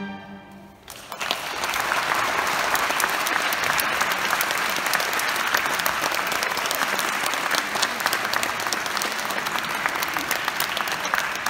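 The last chord of a string octet dies away in the hall's reverberation, and about a second in the audience breaks into applause that continues steadily.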